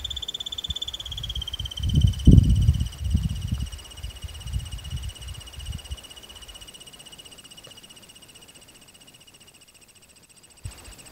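A squirrel, taken on screen for an antelope squirrel, giving a long, high-pitched rapid trill that drops slightly in pitch about a second in and slowly fades. Low rumbling bumps come around two to three seconds in.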